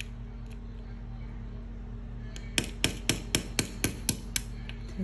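A small watchmaker's hammer taps a pin punch eight times, about four taps a second, driving a pin out of a metal watch bracelet link.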